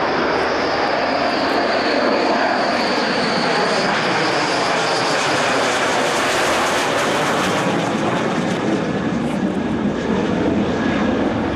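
Canard delta-wing jet fighter flying past overhead: loud, steady jet engine noise with a high whine that rises slightly near the start and fades out after about five seconds. The hiss is strongest about six to seven seconds in, then the sound turns deeper as the jet moves away.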